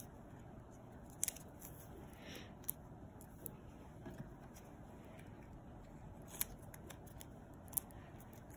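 Small paper handling sounds as stickers are peeled from their backing sheet and pressed onto paper cutouts on a table: a few short sharp clicks and one soft rustle.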